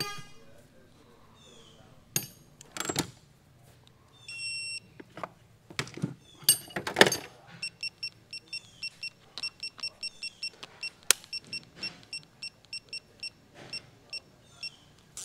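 Metal tools clatter in a toolbox, loudest about seven seconds in. An electronic digital torque wrench gives one longer beep, then a rapid run of short beeps, about three a second, as it is set to a torque value.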